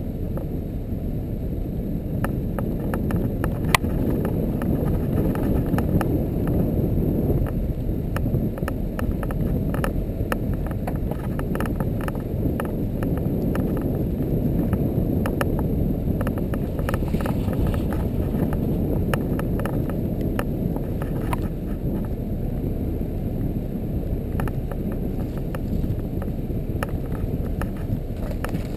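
ATV engine running as the quad drives over a snow-covered track, heard as a steady, muffled low rumble with scattered small clicks and rattles.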